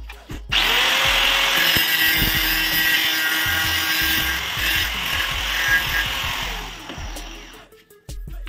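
Handheld angle grinder with an abrasive disc starts up about half a second in and cuts into a threaded pipe fitting, trimming off some of its threads. Near the end it winds down.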